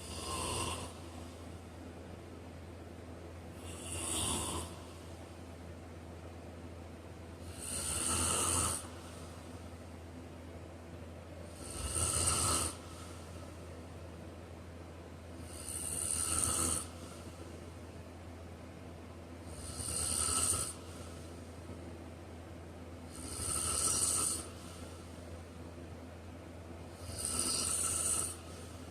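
A person snoring in a slow, even rhythm, about one snore every four seconds, each lasting about a second, eight in all.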